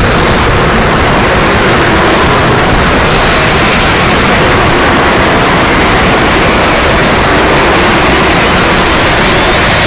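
Loud, steady static-like rushing noise spread across all pitches, with faint wavering tones inside it.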